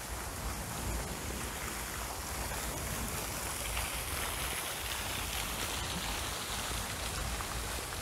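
Garden pond fountain, a vertical jet splashing steadily into the water, with a low wind rumble on the microphone.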